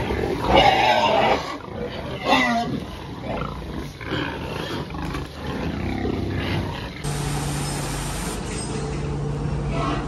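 Pigs in a pen squealing and grunting as a boar mounts and noses the sows, loudest in the first two and a half seconds with a falling squeal about two seconds in. About seven seconds in the sound gives way to a steady low hum.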